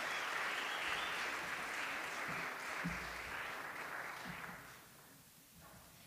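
Audience applauding, dying away about five seconds in.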